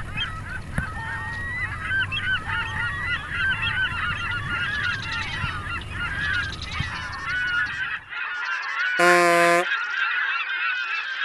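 A flock of geese honking continually, many calls overlapping, over the low rush of water and wind for the first eight seconds. About nine seconds in, a single steady, horn-like honk lasts about half a second.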